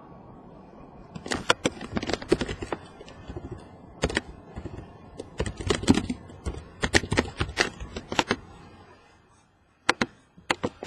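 Typing on a laptop keyboard: quick runs of keystrokes for several seconds, then a pause, then a few more keystrokes near the end.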